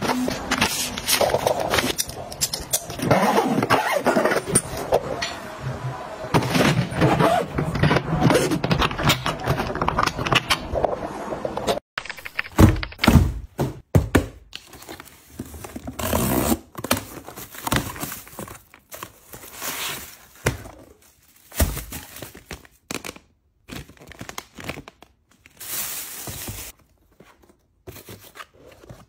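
Close-up handling sounds of packing a hard-shell suitcase, with shoes, bottles and small cases set down and shuffled inside it in a dense run of small knocks, clatters and rustles. About twelve seconds in this stops abruptly, and a cardboard shipping box and its packaging are handled instead, in separate short noisy strokes a second or two apart.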